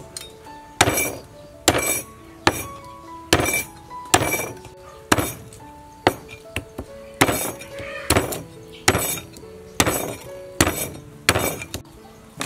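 Cleaver chopping through raw pork ribs on a round wooden chopping block: sharp chops a little faster than one a second, with a pause about halfway through. Soft background music plays under the chops.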